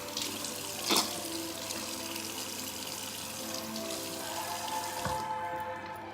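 Tap running into a sink, the water shutting off about five seconds in, with a sharp knock about a second in.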